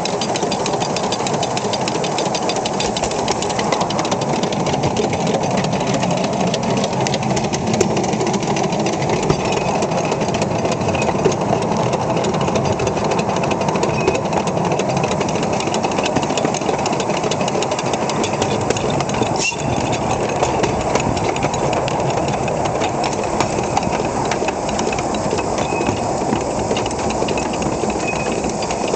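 Miniature steam locomotive running at speed along its track, with a steady, rapid mechanical clatter.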